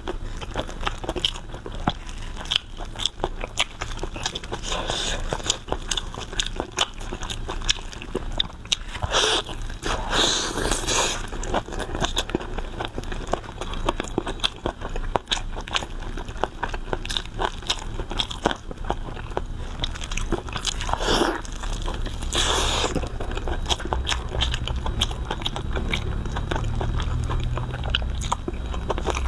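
Close-miked eating: a person biting and chewing pig tongue, a dense run of small mouth clicks with a few louder bites now and then.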